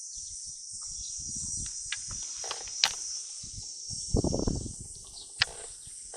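Insects chirping steadily in a high, constant band at the water's edge, with scattered low knocks and rustles, two sharp clicks, and a louder low rustling thump about four seconds in.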